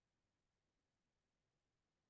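Near silence, with no distinct sound.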